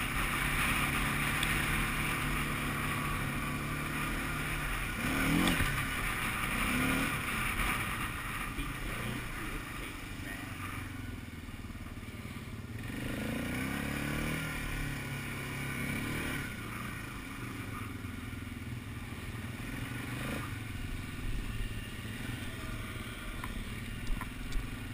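ATV engine running while riding along a dirt trail, with a steady drone and its pitch rising and falling a few times with the throttle.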